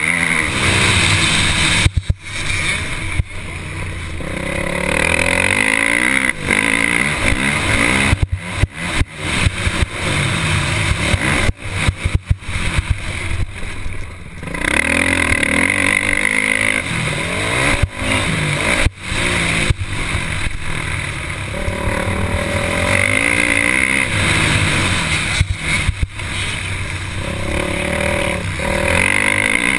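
Motocross dirt bike engine racing on a dirt track, revving up and dropping back again and again as the rider accelerates, shifts and lets off, heard from a camera on the bike. The sound cuts out briefly several times.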